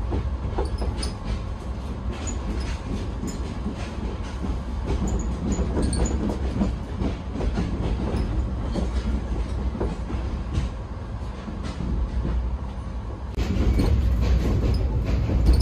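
Maitree Express passenger train running, heard from inside an air-conditioned sleeper coach: a steady rumble of wheels on the rails with frequent clicks and rattles. It grows louder about 13 seconds in.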